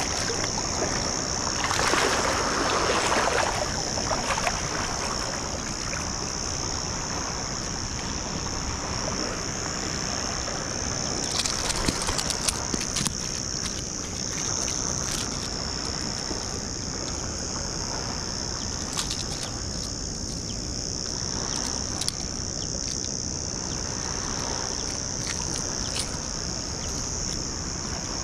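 A steady, high-pitched insect chorus over the noise of shallow water washing on sand, with a louder splashing wash about two seconds in.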